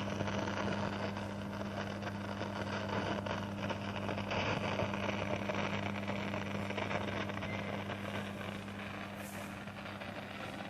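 Ahuja 4040S stereo cassette deck's speakers giving a continuous steady hum under a hiss, with the volume turned fully down. This is a fault whose cause the owner does not know, and the noise comes from both speakers.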